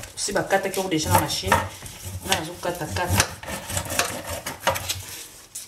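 Raw bone-in meat pieces handled with gloved hands and a knife in a plastic colander: irregular knocks, clatters and scrapes, several a second.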